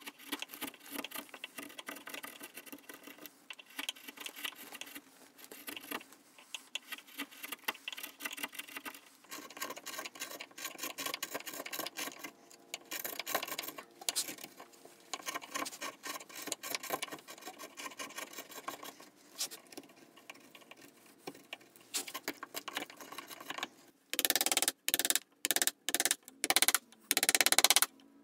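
Hand tools working a maple saw handle: quick, rapid scraping and rasping strokes of a carving knife and a file on the wood. About 24 seconds in, louder separate strokes follow, a little under two a second, as a chisel pares the clamped handle blank.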